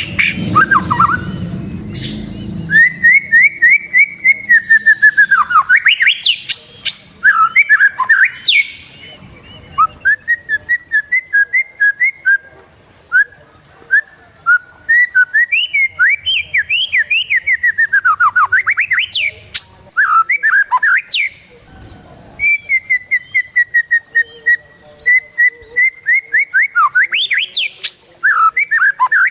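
A songbird singing long trilled phrases of quick repeated chirps that sweep up and down in pitch, in several runs separated by brief pauses, played as a masteran recording for training white-rumped shamas.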